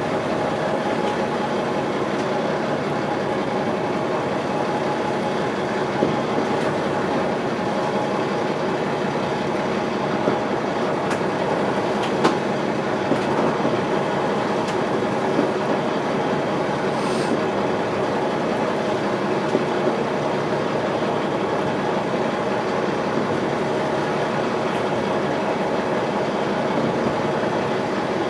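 Motor boat engine running at a steady speed, a continuous even drone with rushing noise underneath and a few faint clicks.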